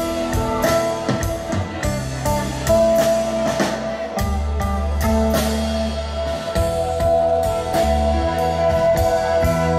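Live instrumental rock from a three-piece band: electric guitar holding long notes over sustained bass guitar notes and a drum kit keeping a steady beat with cymbal hits.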